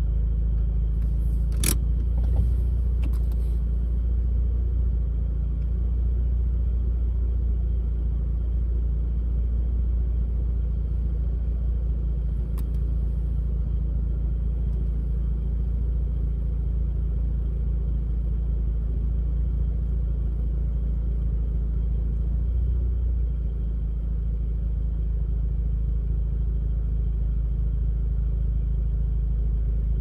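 Steady low rumble inside a Mazda RX-8's cabin while driving: its rotary engine and road noise at an even pace, with a couple of sharp clicks about two seconds in.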